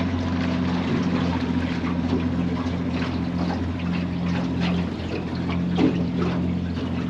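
A 25-horsepower outboard motor running at a steady speed, pushing an aluminum fishing boat, with water splashing against the hull.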